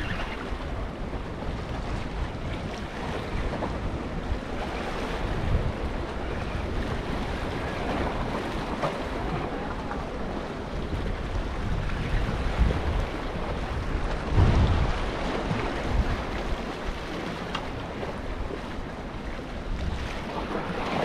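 Surf washing against the rocks of a jetty, with wind buffeting the microphone in low rumbling gusts.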